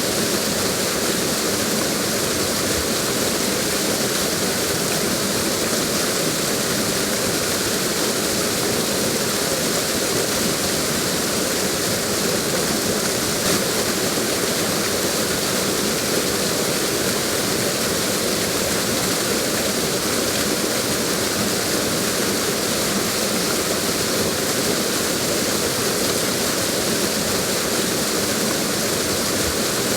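Waterfall: water falling and cascading in a steady, even rush.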